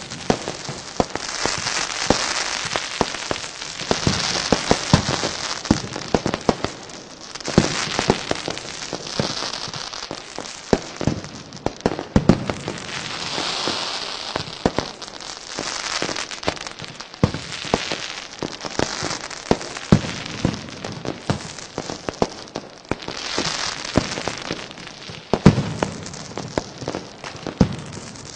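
Fireworks: a dense, continuous run of firecracker bangs and crackling, with repeated swells of high hissing crackle from rockets and fountains every couple of seconds.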